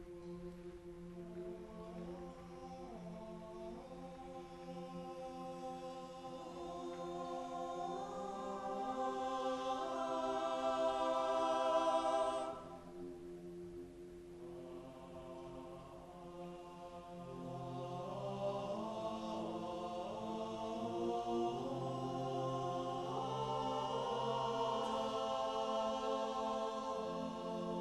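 A group of male voices singing sustained, wordless chords. The sound swells, breaks off abruptly about halfway through, then builds again.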